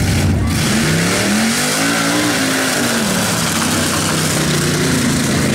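Engine of a lifted Beetle-bodied mud-racing 4x4 revving hard as it accelerates through the mud pit: the pitch climbs about a second in, peaks around two seconds, drops back, holds, and climbs again near the end, over a steady hiss.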